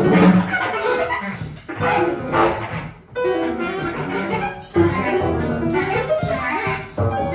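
Live jazz quartet of piano, bass clarinet, double bass and drums playing busy, broken-up phrases of many short notes. The sound nearly drops out for a moment about three seconds in.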